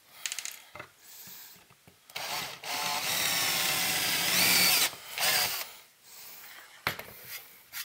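Cordless drill boring a 1/4-inch hole through a sheet-metal chassis: a few light clicks as it is handled, then about three seconds of drilling starting about two seconds in, with a whine that rises in pitch near the end before the drill stops.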